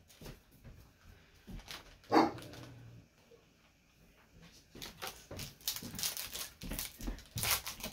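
A pet dog barks once about two seconds in. In the second half come quick light clicks and rustling of trading cards and foil booster packs being handled.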